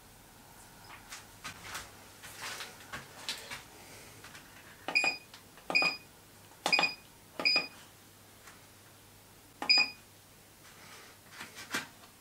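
YIHAOGD digital readout keypad beeping five times as keys are pressed to enter a value: four short, high beeps about a second apart, then one more after a pause of about two seconds. Soft rustles and clicks of fingers on the film-covered panel come before them and again near the end.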